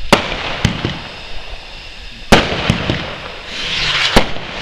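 Fireworks exploding overhead: a run of sharp bangs, three of them loud, the loudest about halfway through, with a hiss building near the end.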